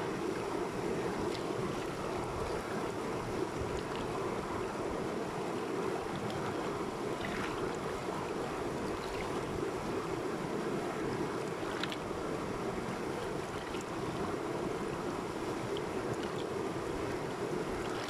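Fast river rushing over rocks in a whitewater rapid close to the microphone: a steady, even rush of water, with a few brief small splashes.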